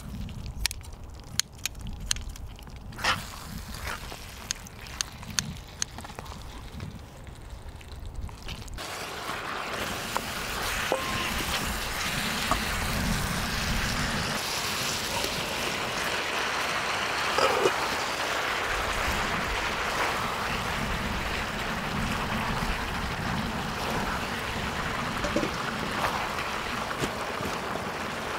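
Chicken in spicy red sauce cooking on a cauldron-lid griddle: metal scissors and tongs click and scrape against the pan at first, then a steady loud sizzle sets in about a third of the way through and continues while the food is stirred.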